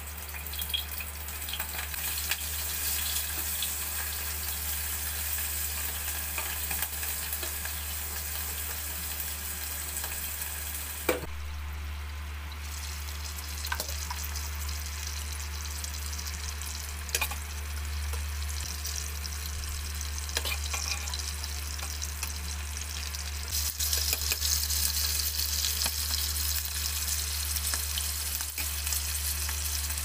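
Small whole fish frying in hot oil in an electric pot, a steady sizzle that grows louder in the last few seconds. Now and then there is a sharp click of metal tongs against the pot as the fish are turned.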